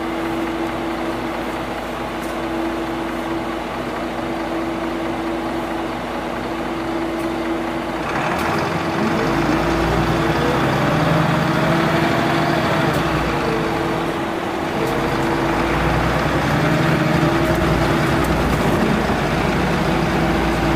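Mitsubishi Fuso QKG-MP38FK bus's six-cylinder diesel engine idling steadily while the bus stands. About eight seconds in, the bus pulls away and the engine note climbs, drops back at a gear change and climbs again as it accelerates.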